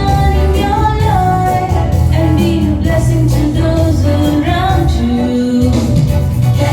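Voices singing a Christian blessing song together over instrumental accompaniment, with long held melody notes above a steady bass.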